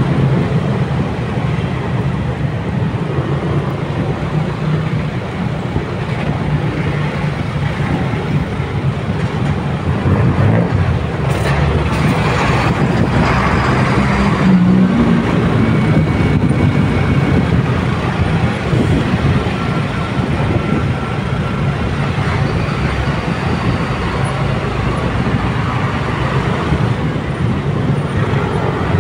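Motorcycle riding through road traffic: steady engine and road noise, with heavier vehicles alongside and a louder stretch about eleven to fifteen seconds in.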